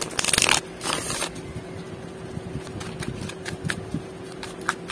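Tarot cards being riffle-shuffled: two quick riffles in the first second or so. Then scattered light clicks of the cards as they are hand-shuffled and squared.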